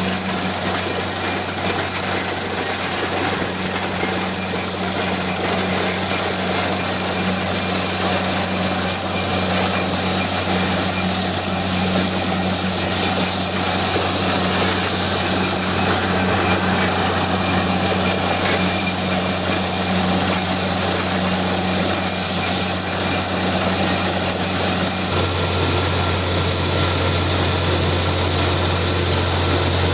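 Borewell drilling rig running steadily: a loud engine drone with a high hiss on top. Near the end the drone shifts to a lower tone.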